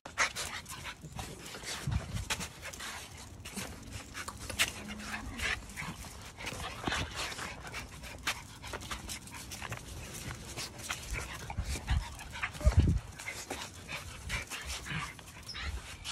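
Miniature Schnauzer puppies playing together: panting, snuffling and scuffling with a few short whines. There is a loud dull thump about 13 seconds in.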